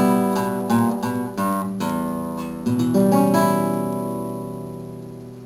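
Background music: acoustic guitar strumming a few chords, then a final chord left ringing and slowly fading out.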